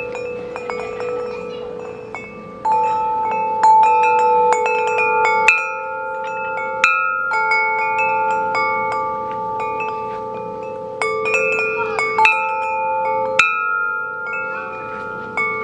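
Large tubular wind chime with long black tubes ringing as its sail is moved by hand, the clapper striking the tubes at irregular intervals. Several notes ring on long after each strike and overlap.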